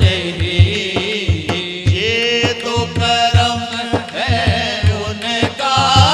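A man singing a naat, an Urdu devotional song, through a microphone in long, gliding notes over a steady low drumbeat.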